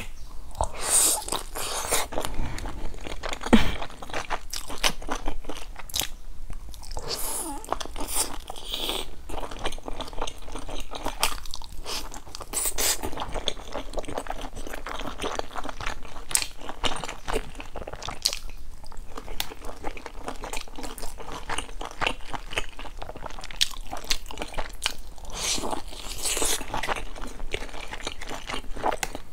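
Biting and chewing of pan-fried buns with crisp browned bottoms: irregular crunchy bites and wet chewing, with one sharp crack about three and a half seconds in.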